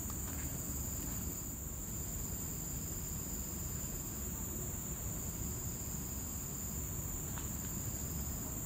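Tropical forest insects droning: a steady high drone, with a second, lower trill that starts and stops every second or two. A low rumble runs underneath.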